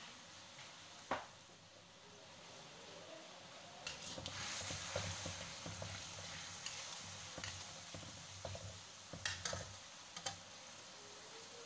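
Soy sauce, oyster sauce and water bubbling in a wok as it comes to the boil, faint at first. From about four seconds in, a metal spatula stirs it with scraping and tapping against the pan, easing off near the end.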